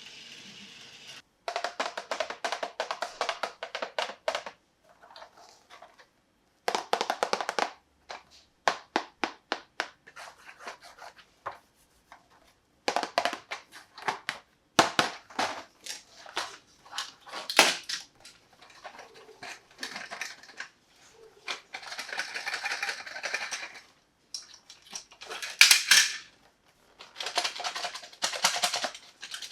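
Plastic toy parts clicking and rattling in a series of short clattering bursts, each a few seconds long, broken off suddenly by gaps of silence.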